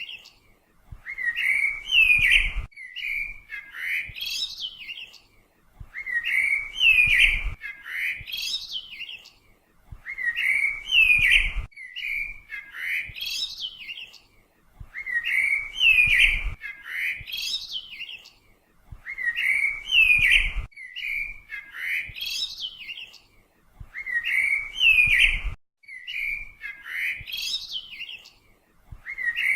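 Bird chirping and tweeting, a short run of high chirps repeated identically about every four and a half seconds: one recorded bird-song clip playing on a loop.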